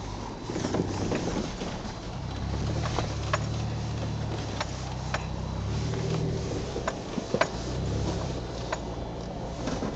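An off-road vehicle's engine running, heard from inside the cab as it drives a snowy track. The engine note swells and eases a few times, with scattered sharp clicks and knocks over the top.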